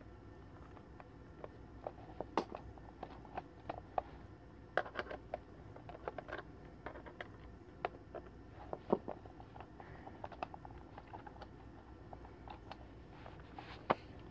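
Screwdriver and hands working on the plastic housing of a Gemmy animatronic macaw toy while it is taken apart: irregular small clicks, taps and scrapes as screws are turned and the plastic parts are handled.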